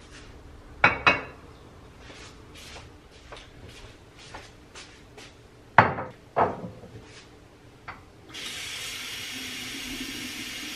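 Glass vases set down and knocked on a kitchen countertop: two sharp clinks about a second in and two louder knocks about six seconds in, with lighter taps between. Near the end a kitchen tap runs steadily for about three seconds.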